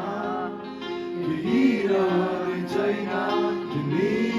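Live band performing a Nepali song: sung voices over guitar and steady held accompanying notes.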